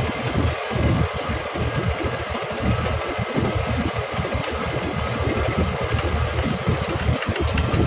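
A small engine running steadily, with a rough, unevenly fluctuating low rumble.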